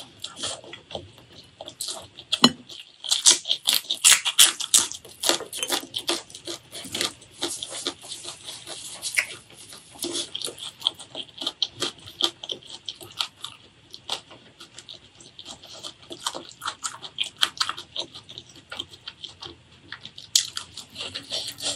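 Close-miked human chewing and eating: a steady run of quick mouth clicks and smacks, with louder stretches of them about three to five seconds in and again near nine seconds.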